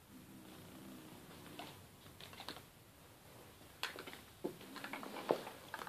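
Male kitten growling low over his toy for about a second and a half, a guarding growl meant to keep others off it. Then scattered soft clicks and taps, the loudest about four and five seconds in.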